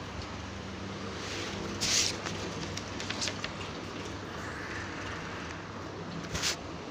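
Steady background room noise: a low hum with hiss, broken by a brief burst of rustling noise about two seconds in and another near the end, with a few faint clicks.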